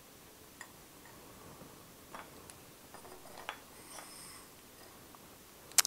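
A few light clicks and taps of laboratory glassware, an Erlenmeyer flask and a graduated cylinder, being handled and set down on a benchtop, with a sharper, louder click near the end.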